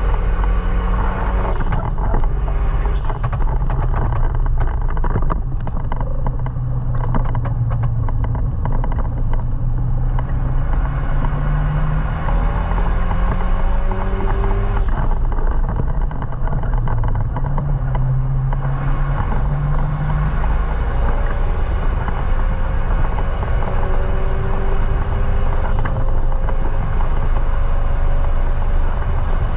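Renault Mégane Renault Sport 225's turbocharged four-cylinder engine pulling hard on track, its pitch climbing through each gear and dropping back at every upshift, several times over.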